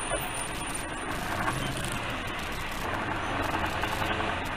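Steady engine and road noise from a vehicle driving at highway speed, heard from inside the cab, with a low hum under an even rumble of tyres.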